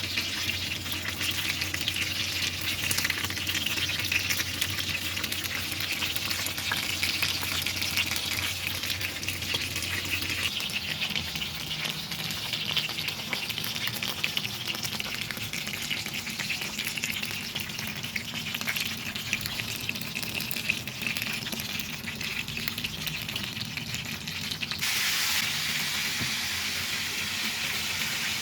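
Whole chicken grilling, its skin and dripping fat sizzling and crackling with a dense run of small pops. A low steady hum underneath stops about ten seconds in, and the sizzle turns louder about twenty-five seconds in.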